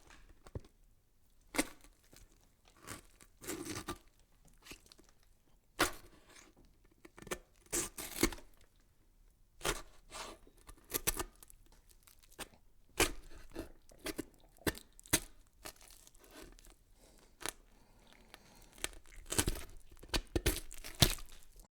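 A series of irregular short crackling and tearing noises with quiet gaps between them, busiest around 6 to 11 seconds in and again near the end.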